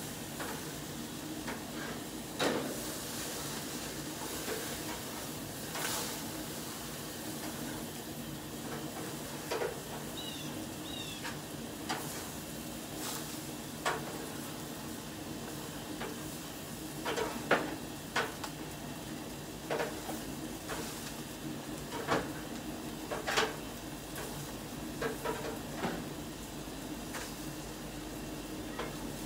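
Burgers sizzling over the flames of a gas grill, a steady hiss with a low hum under it. Occasional sharp clicks and scrapes come through it.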